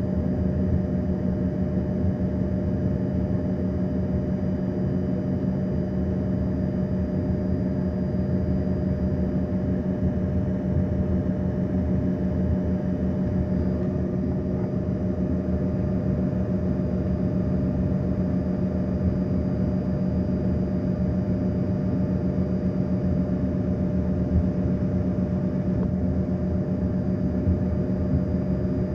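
Airliner engine and cabin noise: a steady drone with a constant low hum that stays the same throughout.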